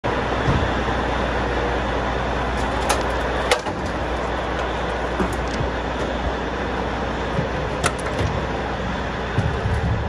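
John Deere 9660 STS combine's diesel engine running steadily at idle, a low rumble under a steady roar, with a few sharp knocks from boots on the metal ladder steps.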